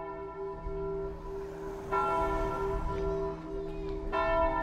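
Church bells ringing in slow tolls: a fresh strike about two seconds in and another near the end, each over the long, pulsing hum of the bells still sounding.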